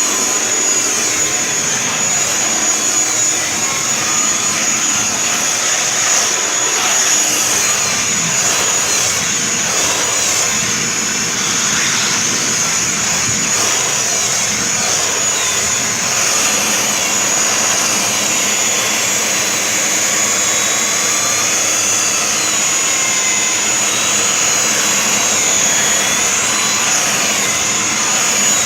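Kirby Sentria vacuum cleaner running steadily with a high, constant whine, sucking through a Dyson attachment tool as it is worked over bedding. Fainter airflow whistles rise and fall in pitch as the tool moves.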